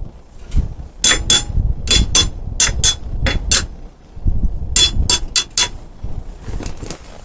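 Metal struck against metal: sharp ringing clinks, several a second, in two runs with a short pause about four seconds in, as from a tool knocking on a wheel or lug nuts.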